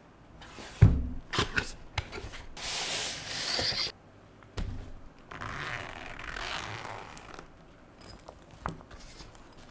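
Unboxing handling noise: a knock about a second in, a few clicks, then the soft fabric carry case of a blood pressure monitor rubbing as it is handled, and its zipper being drawn open in two long scratchy runs.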